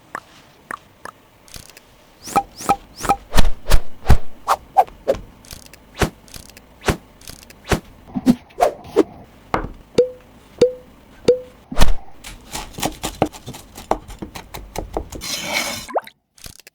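Kitchen food-preparation sounds: a long run of sharp taps and knocks, with three short ringing taps around ten seconds in and a brief scraping rustle near the end.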